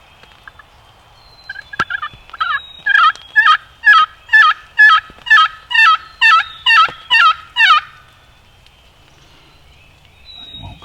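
Turkey yelping: a few quicker notes, then a long even series of about a dozen loud yelps, roughly two a second, each dropping in pitch.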